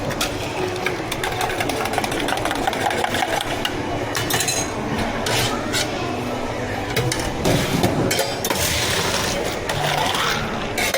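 Drink-counter work sounds: a stream of small clicks and knocks from cups, lids and utensils, with several short bursts of hiss over a low murmur.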